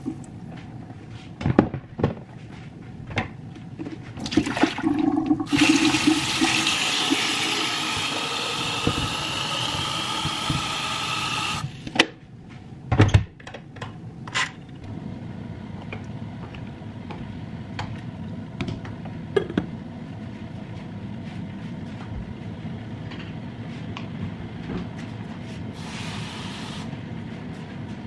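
Kitchen tap water running into a stainless steel sink, with knocks of a plastic cutting board being handled. From about four seconds to about twelve seconds the water runs loudly, its pitch rising steadily. A few sharp knocks follow, and then only a quieter steady background remains.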